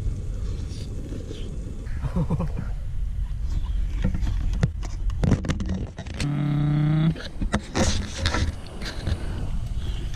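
A man hums a long, satisfied "mmm" for about a second, a little past the middle, while eating hotpot. Around it, a few sharp clicks of utensils against a metal bowl over a steady low rumble.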